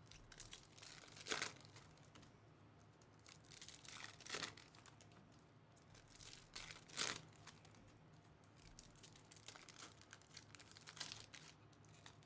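Foil trading-card pack wrappers crinkling and tearing open by hand, in a few short bursts with quiet between.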